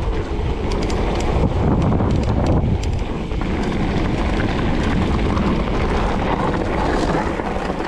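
Wind buffeting the microphone over tyre and trail noise from a mountain e-bike riding downhill, with scattered clicks and rattles.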